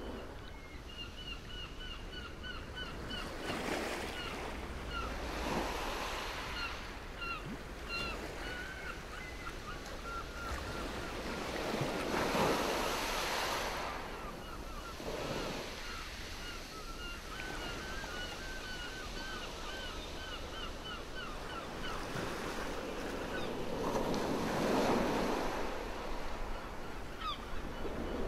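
Waves washing ashore in slow swells, each rush lasting a second or two. Over them a bird calls in quick runs of short, repeated chirping notes.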